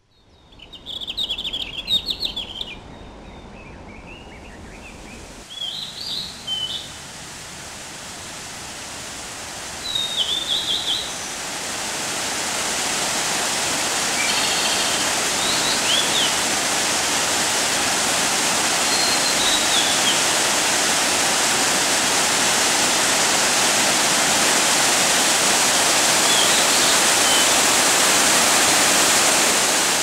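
Small birds chirping in short separate calls over a quiet background. From about ten seconds in, the steady rush of a mountain waterfall and stream rises and stays loud, with an occasional chirp over it.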